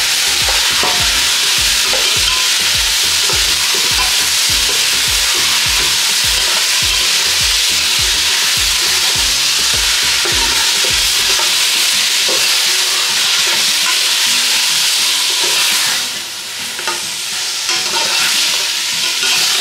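Seasoned chicken sizzling and frying in hot oil in a pot while it is stirred, a steady loud hiss with irregular low knocks over the first eleven seconds or so. The sizzle eases a little about sixteen seconds in.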